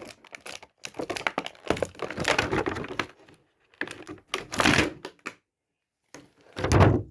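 Action figure's cardboard box and plastic packaging being handled and pulled apart to free the figure: irregular crinkling, scraping and clicking, with a heavier thud near the end.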